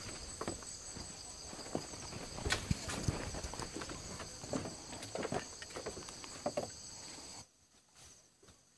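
Irregular knocks and rustling, like footsteps or an animal moving about, over a steady high-pitched drone; everything drops away suddenly about seven seconds in.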